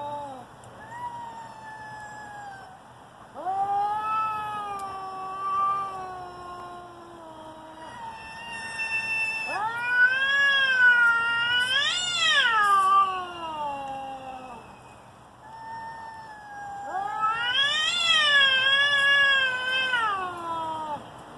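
Two domestic cats caterwauling at each other in a standoff: a series of long, wavering yowls that rise and fall in pitch, loudest and highest about ten to thirteen seconds in and again near the end. These are the threat yowls that come before a cat fight.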